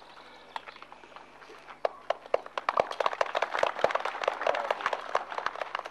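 Scattered applause from a small crowd, a few claps at first and then denser clapping from about two seconds in.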